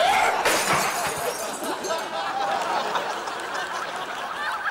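Objects thrown across a room hitting and clattering, with a crash like something breaking about half a second in, over a continuous background of voices.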